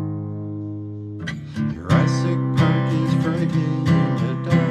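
Masterbilt steel-string acoustic guitar being strummed: a chord rings and fades for about a second, then the strumming picks up again and carries on steadily.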